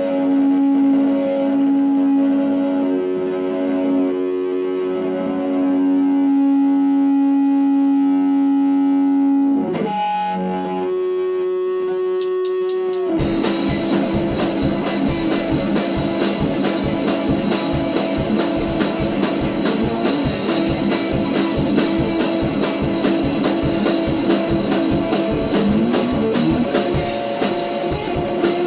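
Rock band playing in a basement, drastically out of tune: a held, ringing distorted electric guitar chord for about ten seconds, a brief break with a few short clicks, then drums and guitar crash in together about thirteen seconds in and keep up a fast, driving beat.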